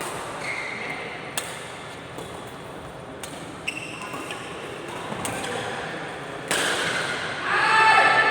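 A few sharp hits or knocks and a short high squeak on a court, then a sudden rise in noise about six and a half seconds in, with a raised voice near the end.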